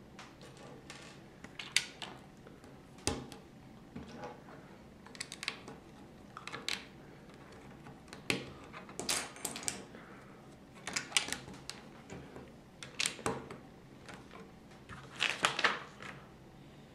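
LEGO bricks clicking and clattering as they are handled, pressed together and set down on a wooden table. The clicks come in short clusters every second or two.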